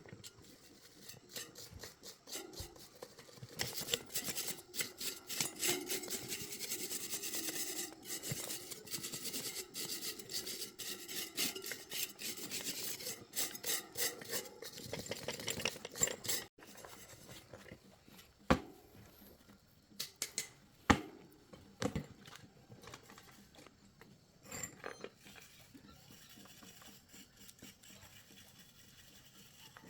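Rapid, repeated hand scraping or rubbing strokes, like sanding or filing a part, for about twelve seconds. Then the scraping stops, and a few separate sharp clicks and knocks follow.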